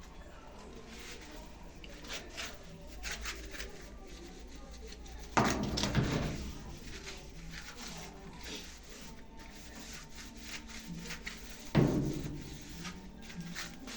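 Washing-machine parts being handled during reassembly: two loud clunks about six seconds apart, with light clicks and rubbing between them.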